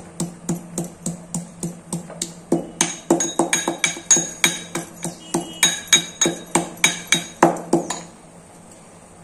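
Raw turmeric and black peppercorns being pounded with a pestle: rapid, steady strikes, about three a second. The blows get harder about two and a half seconds in and stop about eight seconds in.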